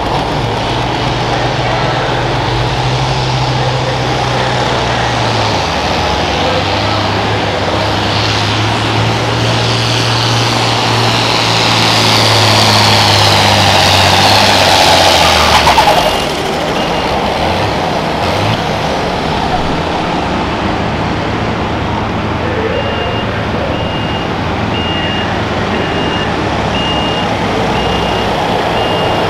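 Turbocharged diesel pulling tractor under full load hauling a weight-transfer sled, engine and turbo whine rising and building, then cut back abruptly about halfway through as the pull ends. The engine then runs at low speed, and a backup alarm beeps regularly near the end.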